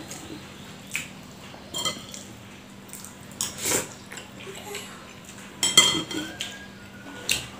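Metal spoon clinking and scraping against a ceramic plate of rice while eating: a few separate short clinks, the sharpest and most ringing one a little under six seconds in.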